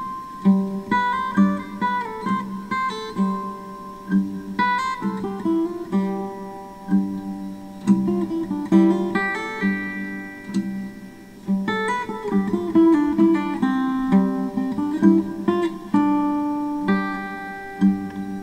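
Background music: an acoustic guitar playing a run of plucked notes and strummed chords.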